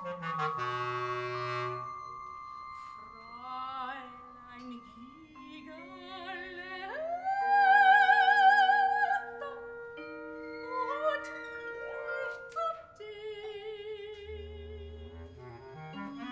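Soprano singing a contemporary classical art song with wide vibrato, sliding up into a loud held note a little past the middle. A small chamber ensemble accompanies her with held instrumental notes and scattered struck mallet-percussion notes.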